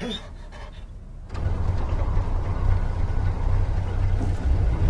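Car being driven, heard from inside the cabin: a steady low engine and road rumble that cuts in suddenly about a second in.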